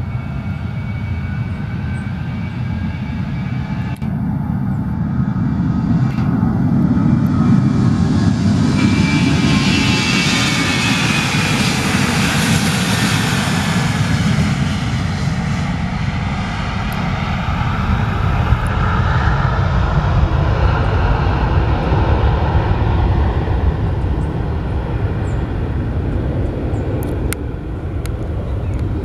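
Jet airliner's engines at high power as it moves along the runway: the noise swells to its loudest about a third of the way in, with a whine that drops in pitch as it passes, then eases.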